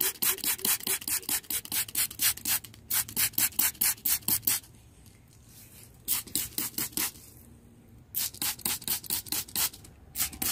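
Plastic trigger spray bottle pumped rapidly, each squeeze giving a short hiss of spray, about four or five a second. The squeezes come in four runs separated by short pauses.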